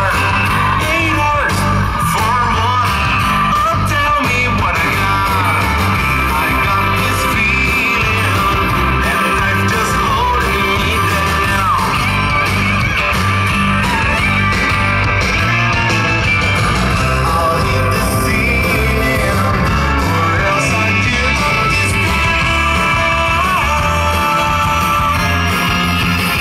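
A loud, steady song with singing over a regular beat, the music the country dance troupe is dancing to.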